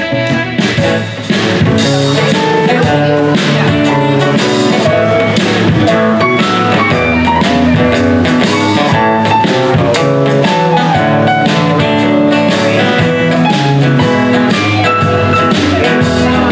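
Live band playing an instrumental passage on guitars and drum kit. The band comes in fuller and louder about a second in.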